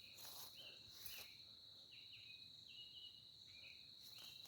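Faint woodland ambience: a steady high-pitched insect drone with short chirps repeating every half second or so, and a few faint footsteps in the first second.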